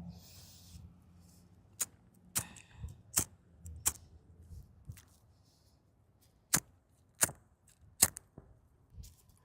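A lighter struck again and again: about seven sharp clicks at uneven intervals, the flame not catching or not staying lit in the freezing wind.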